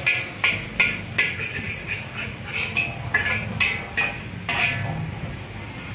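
Long metal spatula clanking and scraping against a wok while stir-frying flat rice noodles (char kway teow), a dozen or so irregular ringing strikes that thin out near the end.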